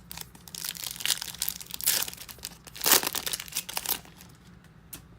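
Foil trading-card pack wrapper being torn open and crinkled by hand, in a run of crackling rustles that is loudest two and three seconds in and dies away after about four seconds.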